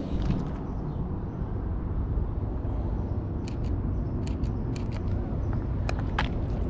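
Steady low rumble of street traffic, with a run of short sharp clicks through the second half, several coming in quick pairs.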